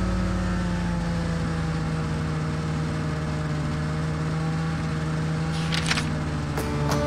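Polaris snowmobile engine running steadily at trail-cruising speed, its pitch drifting slightly up and down.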